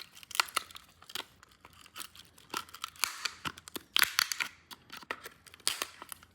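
Irregular sharp clicks, taps and short scraping rustles of hard plastic parts being handled and fitted together by hand.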